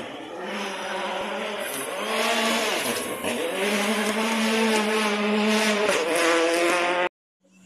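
Rally car's engine at full throttle on a dirt stage, its pitch dropping and climbing repeatedly as it passes and grows louder. The sound cuts off abruptly near the end.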